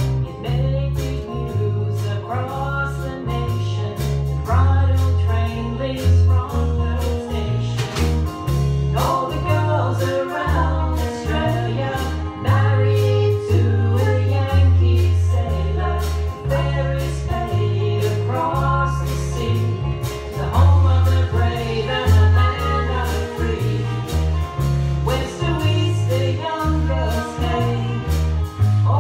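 A small band playing a song live in a room: women singing over electric and acoustic guitars and a drum kit, with a strong low bass line.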